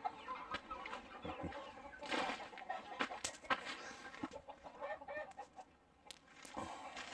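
A flock of chickens clucking, with a few sharp knocks about three seconds in.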